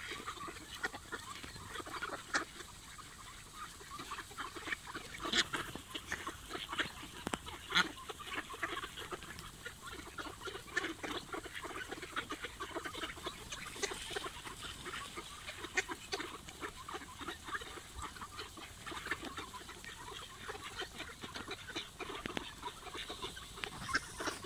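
Large flock of mallards feeding on the ground: a dense patter of quick clicks from bills pecking at food, with quacking mixed in.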